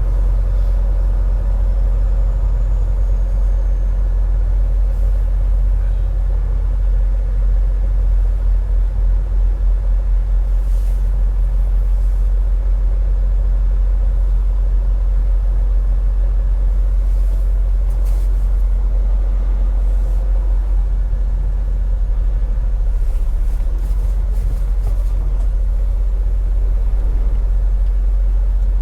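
Semi-truck diesel engine running with a steady low rumble, with a few faint short hisses along the way.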